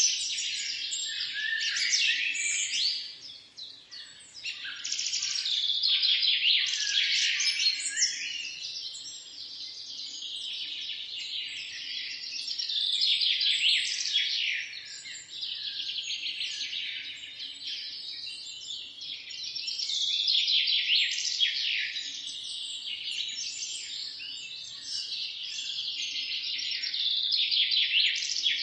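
A flock of small birds chirping together: dense, overlapping, quick chirps that fall in pitch, swelling and thinning in waves, with a brief lull about three seconds in.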